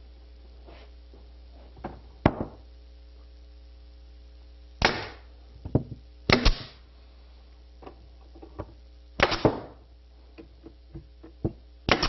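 Nails being driven into a wooden mantel clock's face frame: about seven sharp knocks at irregular intervals, several in quick pairs.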